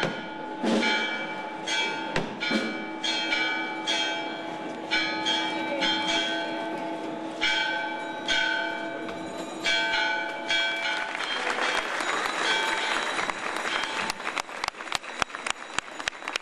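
Church bells pealing, irregular strikes ringing on and overlapping one another. After about eleven seconds the bells die away into a noisy patter, and near the end sharp regular clicks come at about three a second.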